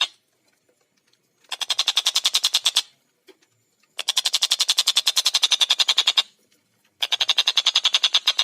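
Tengkek buto kingfisher calling in rapid chattering rattles of about eleven sharp notes a second. Three bouts, each one to two seconds long, with short silent gaps between them; the first starts about a second and a half in.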